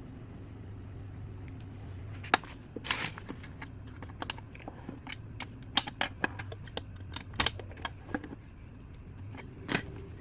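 Irregular metal clicks and clinks of tools and engine parts being handled, starting about two seconds in, over a steady low hum.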